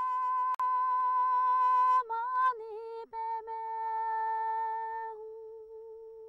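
A single unaccompanied voice singing Tibetan lhamo opera: one long high held note, with a quick wavering ornament about two seconds in, then held again and fading out near the end.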